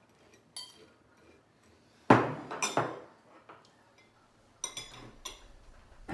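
Cutlery and dishes clinking and knocking on a table: a handful of separate clinks, the loudest about two seconds in.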